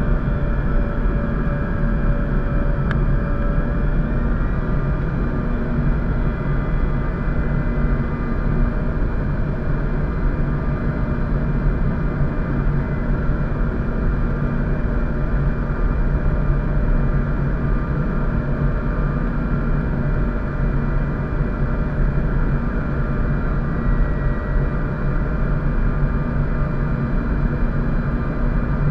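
Steady cabin noise inside a Bombardier CRJ700 regional jet on approach: an even rush of airflow and the drone of its rear-mounted General Electric CF34 turbofans, with a few steady whining tones over it, one of them shifting slightly in pitch in the first few seconds.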